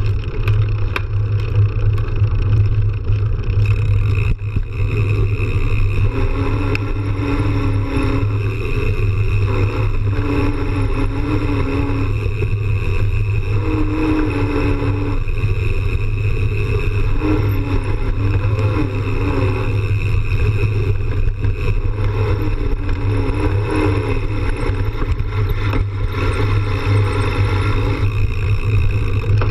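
Mountain bike rolling fast on a dirt trail: a steady low rumble of the tyres on the dirt and wind buffeting the bike-mounted camera's microphone. A faint wavering tone comes and goes in the background through the middle stretch.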